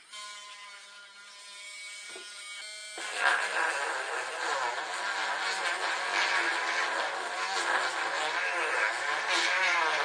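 Handheld corded rotary tool starting up and running free with a steady whine. About three seconds in it starts sanding out a hole in a wooden 2x2, and the sound turns louder and rougher, its pitch wavering under the load.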